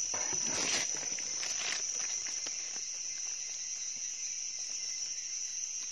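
Steady high-pitched drone of insects, with rustling footsteps in the first couple of seconds.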